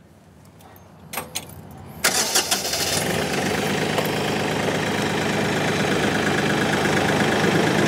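Kioti compact tractor's diesel engine being started: a few light clicks, then about two seconds in it cranks and catches, and settles into a steady run.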